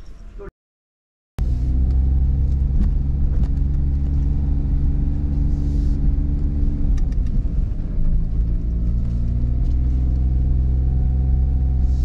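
Car driving, heard from inside: a steady low engine and road rumble that starts about a second in after a short silence. The engine note drops about seven seconds in and picks up again a second later.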